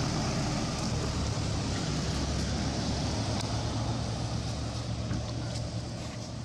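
A steady, low engine drone, like a motor vehicle running, over an even hiss.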